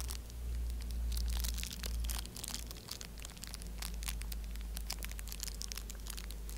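Crinkly plastic foil blind bag being crumpled and picked at by fingers as they try to tear it open: a dense run of crackles over a low steady rumble.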